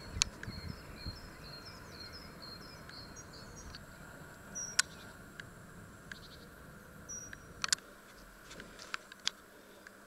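A small bird chirping a quick run of short high notes for the first few seconds, then single high chirps twice later. A few sharp clicks come through, the loudest about five seconds in.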